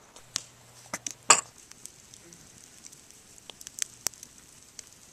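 Wood campfire crackling, with scattered sharp pops at uneven intervals, the loudest a little over a second in.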